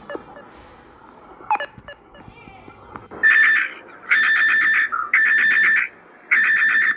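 Simulated Emergency Alert System alarm: two quick rising electronic chirps, then, about three seconds in, four loud electronic tone bursts, each under a second long with short gaps between them.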